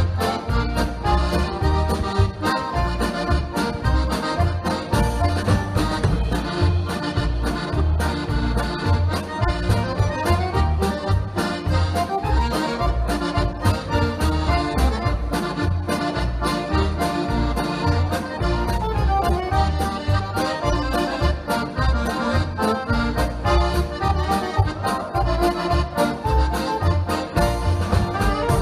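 Instrumental background music with a melody over a steady, evenly pulsing bass beat.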